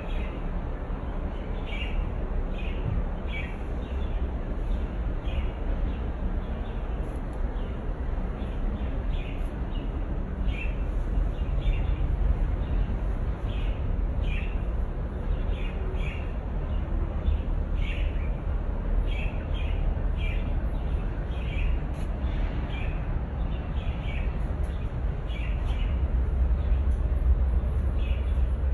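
Small birds chirping, short high notes repeating every half second to a second, over a steady low rumble.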